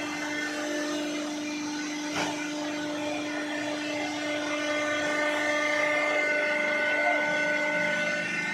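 Hydraulic baling press's electric motor and pump running with a steady whine, a single click about two seconds in.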